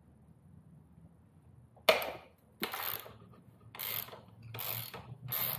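Socket ratchet clicking as it is worked back and forth on a 17 mm rear axle nut to loosen it. After a quiet start, a single sharp crack comes about two seconds in, followed by four short bursts of ratcheting.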